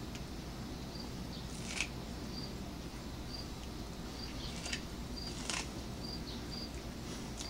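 A cat biting and chewing kernels off a cob of corn, giving a few crisp crunches. Behind it a cricket chirps steadily, short high chirps about once a second.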